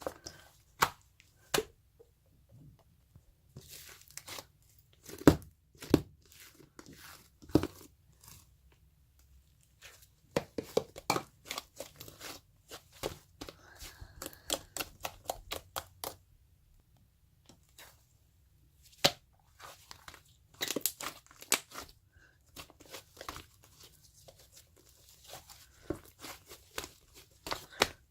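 Purple slime being squeezed and stretched by hand, giving irregular sticky pops, clicks and crackles as air pockets burst, with a busy run near the middle, a short pause, and another burst of pops later.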